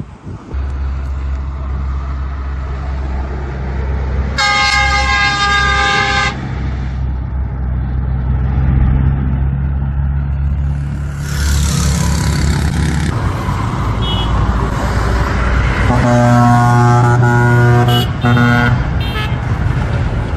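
Bus horn sounding two long blasts over a steady low engine drone. The first, higher-pitched blast comes about four seconds in and lasts about two seconds. A burst of hiss follows, then a second, lower and longer blast about sixteen seconds in that lasts about three seconds.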